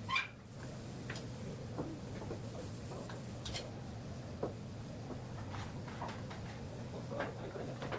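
Scattered light clicks and knocks, a sharper one with a short squeak right at the start, over a steady low hum.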